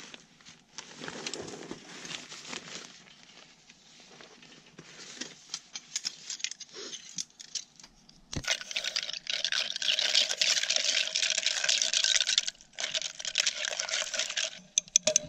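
Plastic food packaging crinkling and rustling, then from about eight seconds in a loud steady hiss, broken once briefly near the end.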